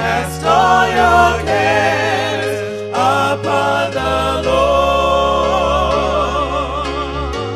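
Gospel music with several singing voices, wavering with vibrato, over a bass line that moves to a new note every second and a half or so.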